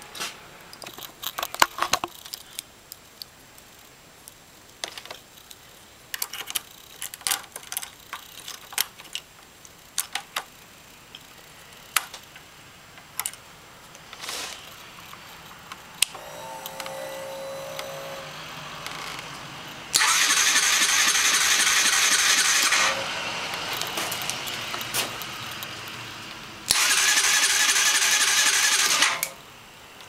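Honda CBR125R motorcycle's electric starter cranking the engine in two loud spells of about three seconds each, the engine not catching. Before that come scattered small clicks and rattles and a faint hum.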